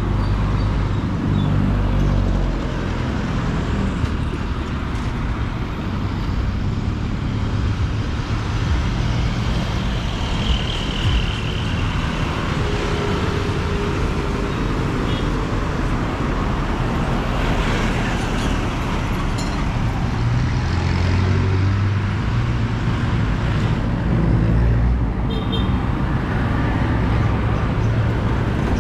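Road traffic: vehicle engines and tyre noise running steadily, with a continuous low rumble.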